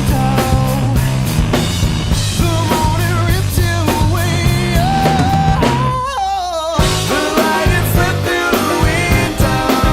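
Rock song with drum kit, steady bass and a bending melodic line, likely a voice. The drums and bass drop out briefly about six seconds in, leaving the wavering melody on its own, then come back.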